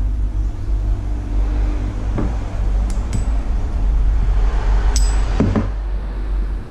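A few light clicks and metallic clinks from the parts of a disassembled Indigo Madai 1000 spinning reel being handled: the spool, the rotor and bail arm, and the handle. The clearest clink comes about five seconds in, with a short high ring. A steady low rumble runs underneath.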